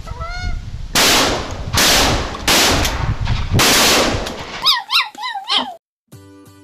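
Four shotgun shots in about three seconds at Canada geese, followed by a quick run of goose honks; background music comes in near the end.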